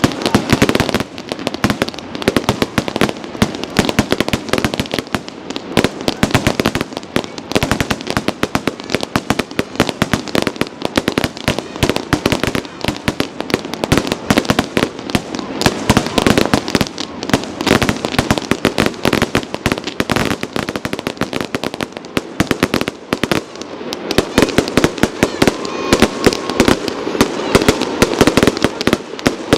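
Fireworks display going off in a dense, continuous barrage of sharp bangs and crackles, many per second.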